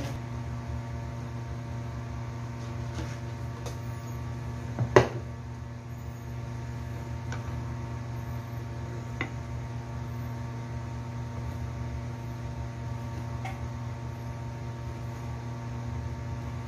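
Steady low electrical hum, with a sharp knock about five seconds in and a few faint clicks of kitchen prep on a wooden chopping board.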